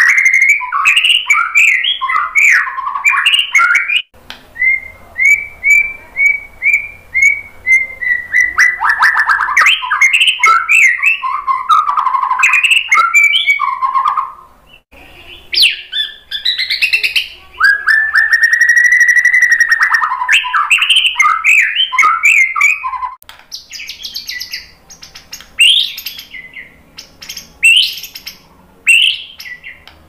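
White-rumped shama singing a long, varied song of clear whistles, fast trills and chattering notes, with a brief pause about halfway through and one long held whistle soon after.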